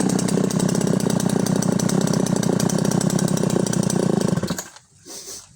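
Husqvarna Rancher 61 61cc two-stroke chainsaw engine held at high revs with a steady pitch, then falling away abruptly about four and a half seconds in.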